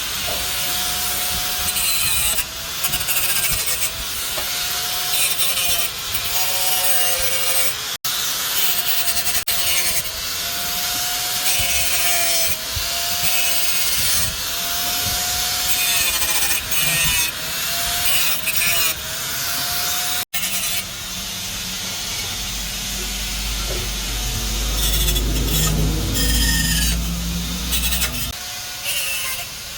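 Hand-tool work on motorcycle parts: rhythmic back-and-forth scraping strokes, each with a wavering squeal, like sanding or filing. Near the end a steady low motor hum runs for several seconds.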